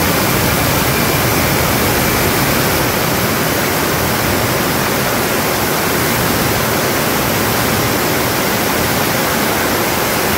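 DASS GNX turbo-ramjet engine running on a test stand: a loud, steady rushing noise of jet exhaust, with a faint high whine that fades out about two seconds in.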